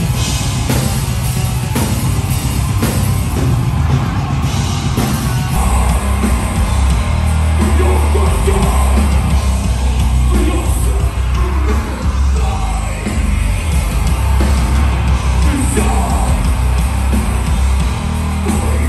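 Loud heavy metal music with yelled vocals over a heavy, bass-laden band.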